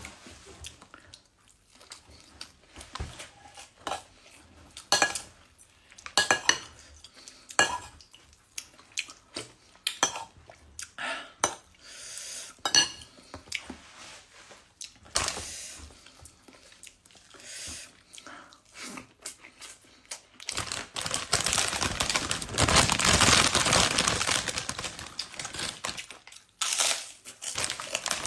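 Ceramic plate clinking and scraping as rice and fish are eaten by hand, in scattered sharp clicks. About two-thirds of the way in comes a louder stretch of dense crackling noise lasting about six seconds.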